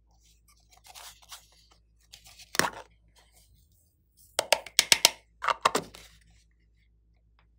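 A plastic eyeshadow palette being handled: soft scraping and crumbling of pressed powder, and sharp plastic clicks and taps, the loudest a quick run of them about four and a half to six seconds in.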